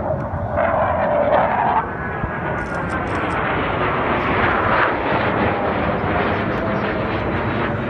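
Blue Angels F/A-18 jet flying past overhead: a loud, steady rush of jet engine noise with a whine that falls slowly in pitch as it goes by.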